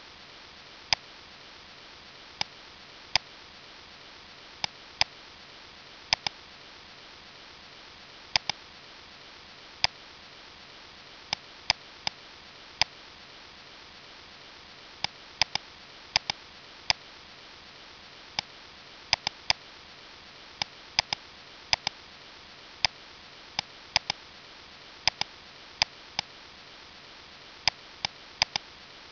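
Computer mouse buttons clicking at irregular intervals, often in quick pairs, over a steady faint hiss.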